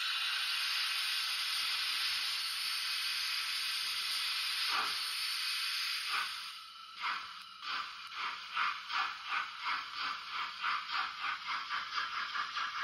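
Digital sound decoder of a Fleischmann 150 X steam locomotive model, playing through its small onboard speaker. A steady steam hiss runs for about six seconds, with a short falling whoosh just before the chuffs begin. Exhaust chuffs then start slowly about halfway through and quicken as the locomotive starts away.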